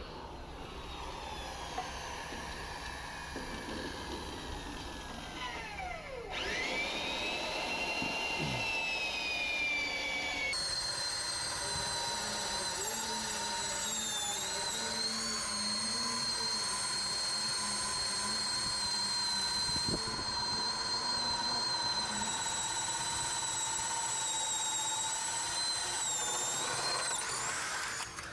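A high-speed power tool whining. It winds down and is started up again, then runs steadily with its pitch wavering as it works.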